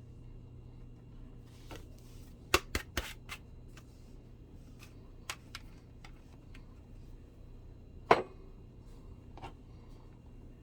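Sparse clicks and knocks of kitchen utensils being handled, over a low steady hum. There is a quick cluster of four about two and a half seconds in, a few single taps later, and the loudest knock about eight seconds in.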